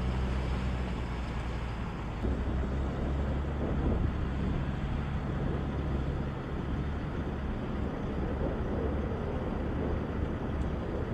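A steady, low engine rumble with a noisy rush over it and no sudden events.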